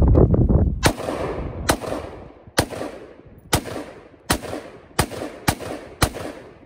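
A long gun fired eight times in steady succession, about one shot a second, coming slightly faster toward the end; each sharp crack trails off in a short ring-out. A jumble of low rumble and small cracks fills the first second before the first shot.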